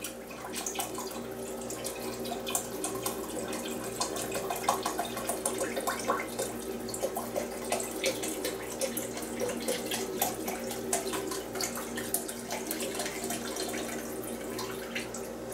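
Chicken broth poured from a carton into a slow cooker's stoneware crock: a steady splashing trickle of liquid, with small spatters throughout.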